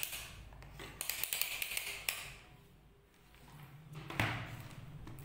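Clicks and taps from a handheld digital multimeter being handled and its selector dial turned, with a burst of small clicks between one and two seconds in and a single thud about four seconds in.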